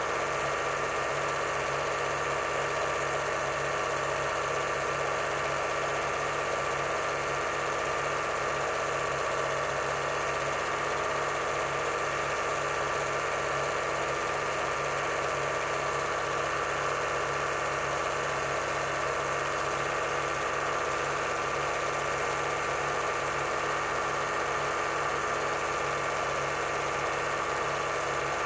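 8mm cine projector running steadily: a constant motor hum with the fast, even clatter of the film transport.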